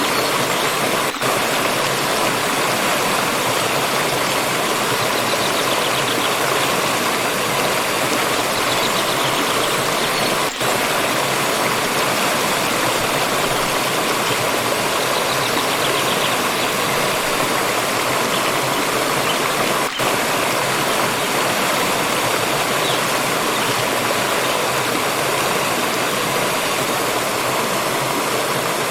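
Water stream flowing steadily over rocks, a constant rushing and splashing, with three very brief dips in level.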